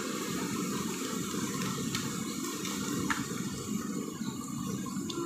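Steady, even rushing noise, with a few faint clicks about two and three seconds in as glue and red colouring are stirred in a plastic cup.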